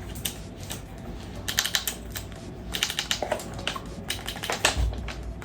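Quick runs of small sharp clicks and taps from hands handling an airsoft rifle and its freshly mounted red-dot sight, in three short bursts.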